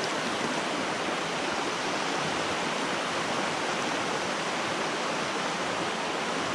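Creek water rushing steadily over rocks in a small cascade.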